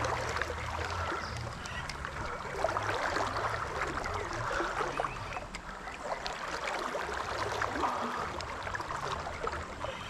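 River current flowing, a steady rushing noise with faint scattered ticks over it.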